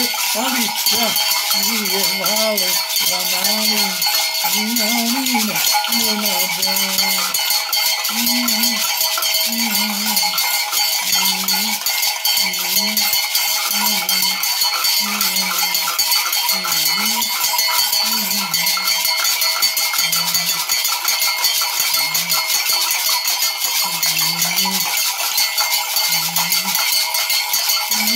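Metal bells and gourd rattles shaken without pause, a dense jingling and rattling, under a man's low chanting voice in short rising-and-falling phrases about once a second.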